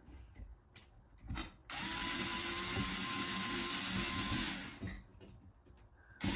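Electric drill-driver driving a screw: a motor that spins up and runs steadily for about three seconds, then stops, followed by a second short burst near the end.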